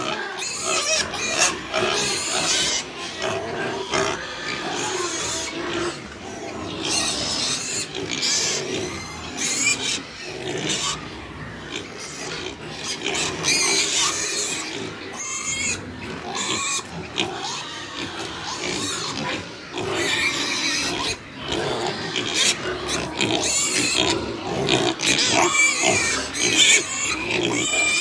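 A pen of young pigs grunting and squealing, several at once, with high wavering squeals over a steady bed of lower grunts.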